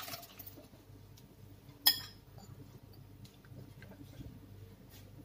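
A single ringing clink about two seconds in, a glass bowl knocking against a metal cooking pot as chopped plantain is tipped in. Otherwise only faint small knocks over a low steady hum.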